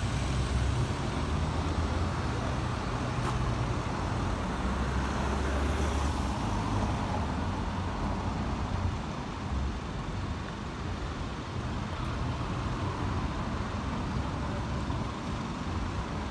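Single-decker diesel buses pulling away through a bus station. The low engine rumble is heaviest over the first six seconds and then fades into steady traffic noise.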